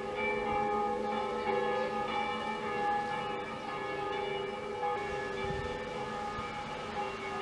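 Church bells ringing, several bells sounding together with long overlapping tones.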